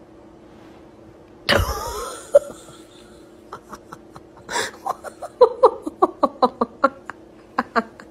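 A person laughing in short rapid bursts, after a sudden loud outburst about a second and a half in.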